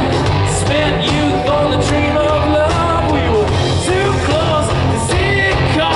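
Live hard rock band playing a song: male lead vocal singing over electric guitars, bass and drums, heard through a big outdoor PA from among the audience.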